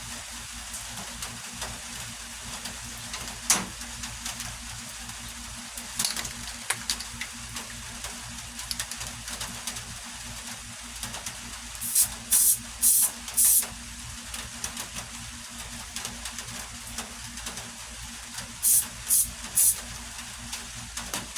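Aerosol can of Loctite spray adhesive being sprayed in short hissing bursts: four quick bursts about halfway through and three more near the end. A couple of sharp clicks come earlier.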